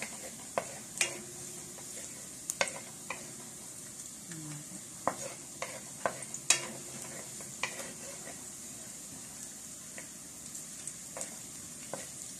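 Chopped garlic sizzling in hot oil in a wok as a wooden spatula stirs it, with irregular sharp knocks and scrapes of the spatula against the pan.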